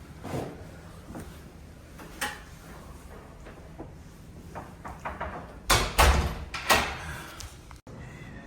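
A few light knocks, then a loud cluster of bangs and clatter about six to seven seconds in, like a door being opened and shut. It cuts off abruptly near the end.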